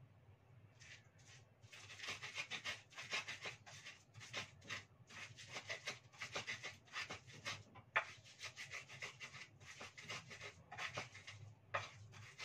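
Ulekan pestle grinding in a cobek mortar: a steady run of short scraping, grinding strokes, about two to three a second, starting about a second in, with one sharper knock about eight seconds in.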